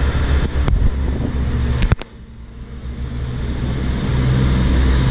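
Truck engine running under way with road noise. A sharp click comes a little under two seconds in; the sound then drops away and builds back up over the next two seconds.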